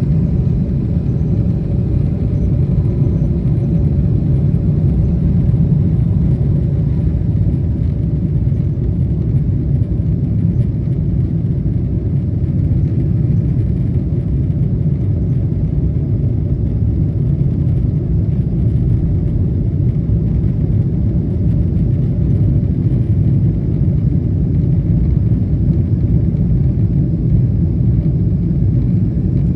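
Steady, loud rumble inside the economy cabin of a Boeing 777-200ER as it climbs out just after takeoff: engine noise and airflow at high power.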